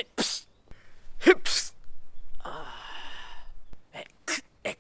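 A person sneezing again and again: short, sharp sneezes, with a longer breathy, wavering stretch in the middle and three quick ones near the end.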